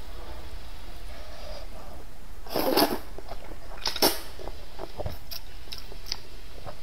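Slurping wide rice noodles and sipping broth from a bowl: two short slurps, about two and a half and four seconds in, followed by a few soft mouth clicks.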